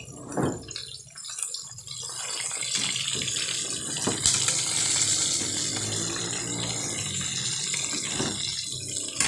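Pork chops sizzling steadily in hot oil in a frying pan, the sizzle louder from about two seconds in. A metal spatula clicks against the pan a couple of times.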